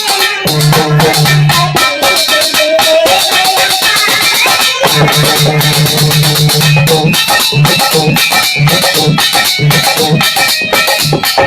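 Bhajan music with a steady, regular drum beat under a low repeating bass note and a wavering melody line.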